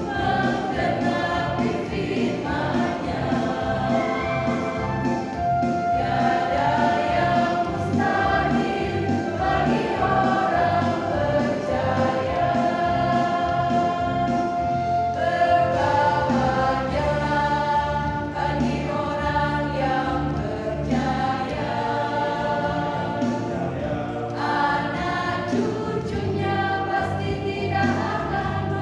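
Mixed choir of women's and men's voices singing a hymn in Indonesian, continuous and steady with several long held notes.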